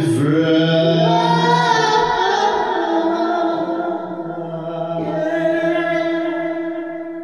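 The final held sung note of an acoustic song, a man's voice over acoustic guitar in DADGAD tuning, shifting once about five seconds in and fading out toward the end.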